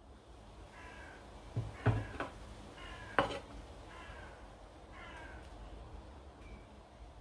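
An animal calling about four times, short pitched calls that fall slightly, roughly a second apart. A few sharp clicks and knocks come between the first calls, the loudest a little after three seconds in.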